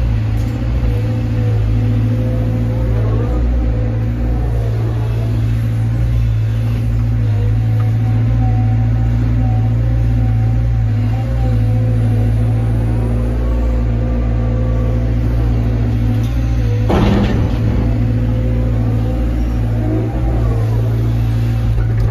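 Caterpillar 320 excavator's diesel engine running steadily under load from inside the cab, with a whining tone that rises and falls several times as the boom and bucket work. About 17 seconds in, a single sharp thump stands out above the drone.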